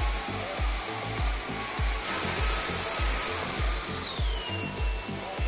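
Electric ducted fan in a 3D-printed RC Harrier running on the bench, a high, steady whine that steps up in pitch about two seconds in, then falls in pitch as it is throttled back near the end. Background music with a steady bass beat plays under it.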